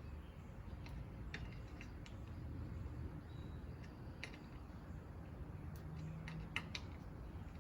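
Scattered small clicks and taps of hand tools on the plastic and metal parts of a Stihl KM110R trimmer being taken apart, several coming close together near the end, over a low steady hum.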